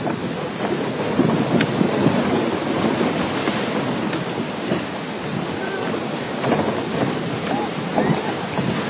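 Steady rushing noise of wind and sea water, with wind buffeting the microphone.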